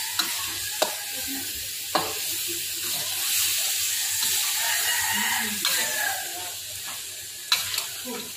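Chopped chicken stomach sizzling in a steel wok while a metal spatula stirs and scrapes it. A few sharp clinks sound as the spatula strikes the wok, two of them close together near the end.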